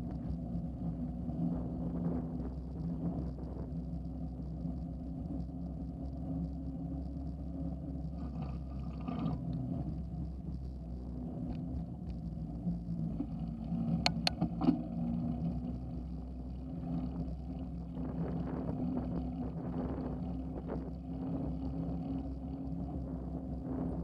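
Steady rumble and hum of a bicycle rolling over pavement, picked up through a handlebar-mounted action camera, with a few sharp clicks or rattles about fourteen seconds in.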